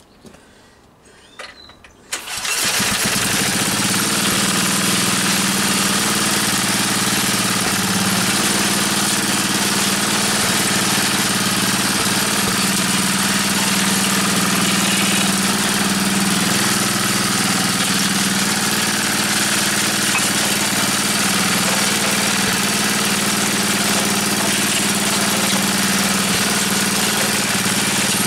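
Small Briggs & Stratton single-cylinder petrol engine pull-started about two seconds in, catching at once and then running steadily at an even speed.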